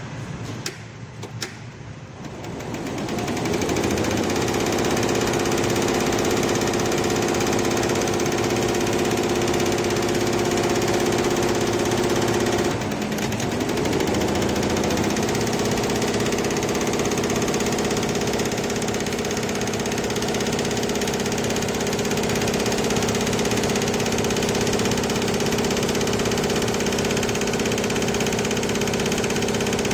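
Lejia multi-head computerized embroidery machine stitching at high speed, a steady mechanical running hum. It winds up to full speed about three seconds in, then briefly slows and speeds up again about halfway through.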